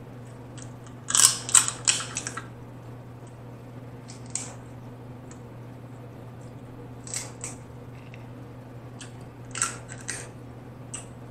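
Snow crab leg shells cracked and snapped apart by hand. A loud cluster of sharp cracks comes about a second in, followed by scattered smaller cracks and crackles, all over a steady low hum.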